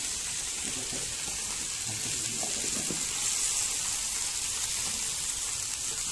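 Steaks sizzling in oil on the grill plate of an electric grill pan: a steady high hiss, with a few faint knocks about one to three seconds in.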